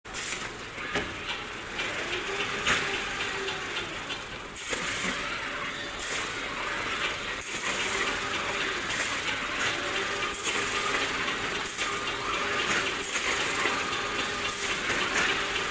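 Palletizing robot arm and roller conveyor running, giving a steady clattering mechanical noise with a faint whine that comes and goes several times.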